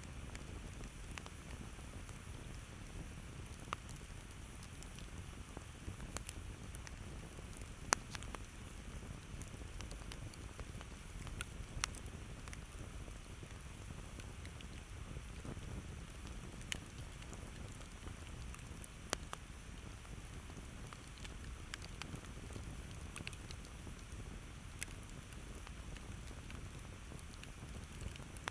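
Campfire burning with a low steady rumble and irregular sharp crackles and pops from the wood, a few seconds apart, the loudest pop about eight seconds in.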